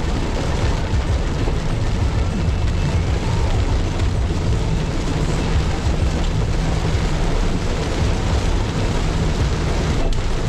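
Steady driving noise of a Mitsubishi Xpander Cross on a wet road in rain: an even low rumble with tyre and rain hiss over it.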